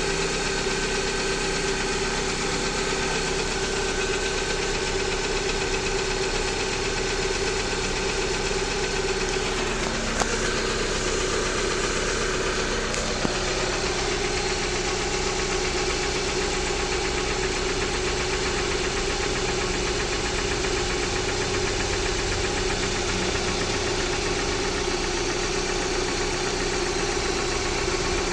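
Jeep Patriot's 2.4-litre four-cylinder engine running steadily at idle with a knock in the engine. The knock does not change as the engine warms up, and its cause is unknown to the owner.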